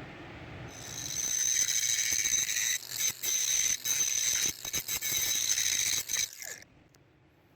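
A high-speed power tool runs with a steady, high-pitched whine, briefly interrupted several times, then stops near the end.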